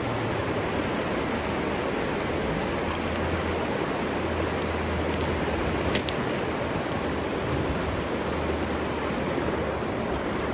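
River water rushing steadily, with one sharp click about six seconds in.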